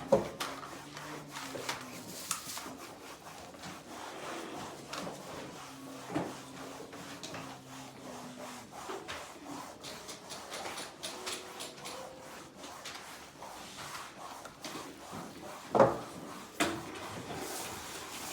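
Household cleaning and handling sounds: rubbing and scraping, with scattered knocks and clunks. The loudest knock comes at the start, and two more come about two seconds from the end.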